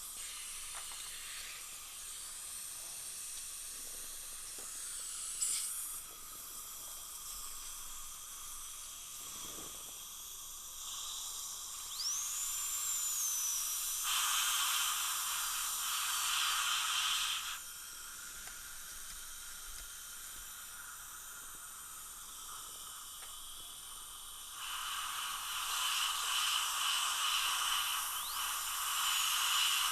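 High-speed dental handpiece with a 330 carbide bur cutting through the metal of a porcelain-fused-to-metal implant crown. A steady hiss runs under a thin whine that rises as the handpiece spins up, about midway through and again near the end, with two louder stretches of cutting.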